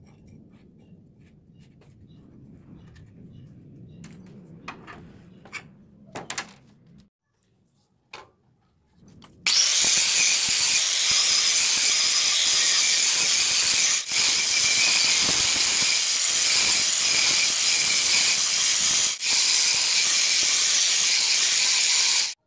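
Angle grinder grinding a leaf-spring steel knife blank: a loud, steady grind that starts about ten seconds in, dips briefly twice, and cuts off suddenly at the end. Before it, a few light clicks and knocks.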